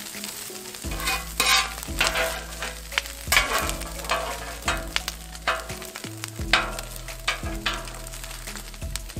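Pulled pork sizzling in bacon grease on the steel cooktop of a 36-inch Blackstone griddle. Metal spatulas scrape and knock against the griddle again and again as the meat is chopped and pushed into portions.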